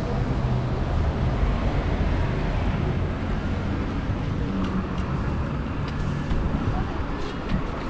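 City road traffic: cars passing with a steady low rumble of engines and tyres, with a few faint clicks in the second half.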